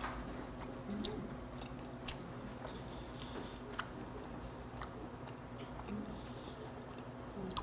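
A person chewing soft raw horse meat sashimi close to a clip-on microphone: faint moist clicks and smacks at irregular intervals.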